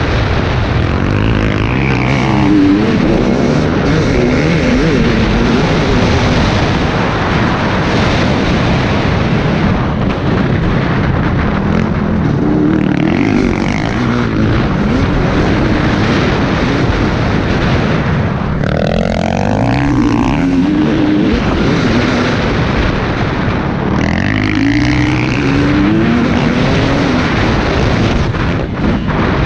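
Dirt bike engine running hard, its revs rising and falling repeatedly through the gears, heard from the rider's helmet.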